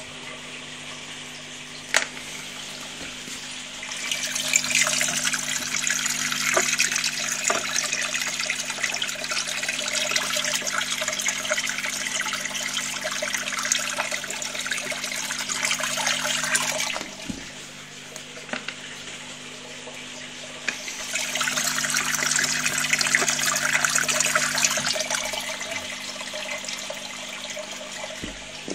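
Water rushing and splashing in a small aquarium, swelling into two long louder stretches, over a steady low hum. A single sharp click comes about two seconds in.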